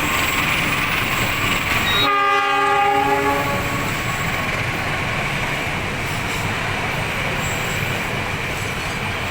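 Running noise of a passing train, with a single horn blast about two seconds in that lasts around a second and a half and then fades.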